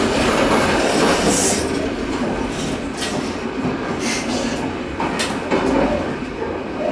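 Running noise of an NSB B5-2 passenger coach heard from its door vestibule: a steady rumble of wheels on rail, with several sharp clicks about a second apart as the wheels pass rail joints.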